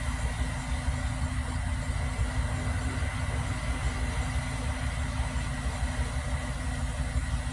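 Truck engine of a drywall-delivery boom crane idling steadily. It is a low, even rumble with a faint steady high tone above it.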